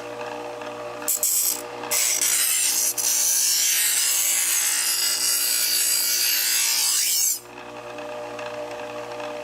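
Vertical water-cooled knife sharpener (SDG-150H) running with a steady motor hum. About a second in, a blade is pressed against the spinning whetstone: a loud, rasping grinding that breaks off briefly, then runs for about five seconds and stops, leaving the motor hum alone.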